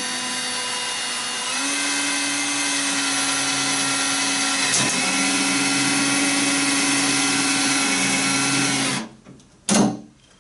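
Cordless drill running at a low, steady speed as it bores a fastener hole through a multiwall polycarbonate sheet, its motor whine stepping up slightly about a second and a half in. The drill stops near the end, followed by a single loud knock.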